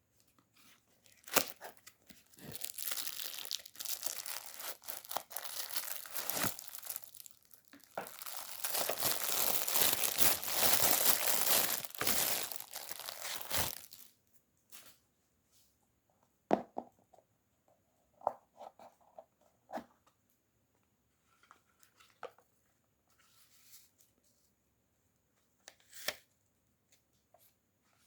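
Parcel packaging being torn open by hand: a long stretch of ripping and crinkling. About halfway through it stops, and only scattered light taps and knocks follow.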